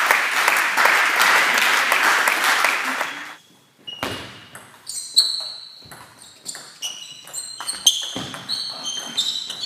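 Spectators applauding for about three seconds after a point. After a short lull, a table tennis rally: the celluloid ball clicks sharply off the bats and table, with short high squeaks of players' shoes on the sports hall floor between the hits.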